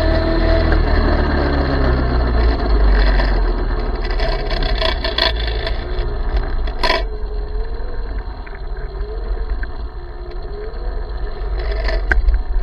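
Small electric minibike running, its motor whine rising in the first second and later wavering up and down, over heavy wind rumble on the microphone and rough ground noise. A sharp knock about seven seconds in.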